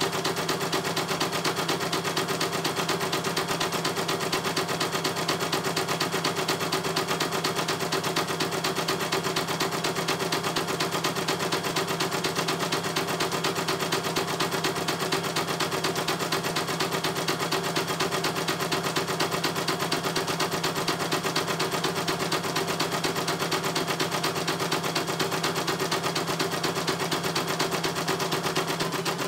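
CNY E900 computerized embroidery machine stitching a design: a steady, rapid, even clatter of needle strokes.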